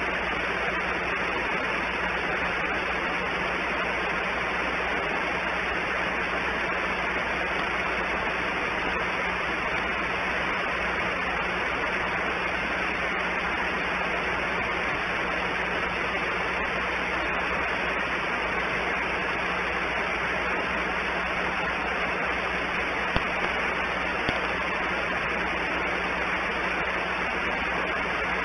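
Steady background hiss with a constant low hum beneath it, and two faint ticks about 23 seconds in.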